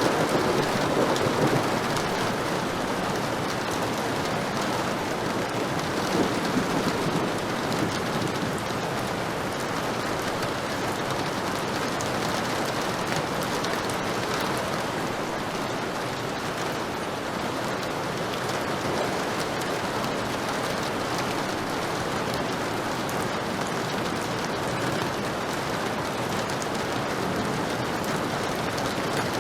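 Heavy rain falling steadily, with low rumbles of thunder in the first seconds and again about six seconds in.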